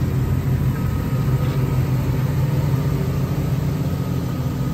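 2003 Chevy Suburban's V8 engine idling steadily.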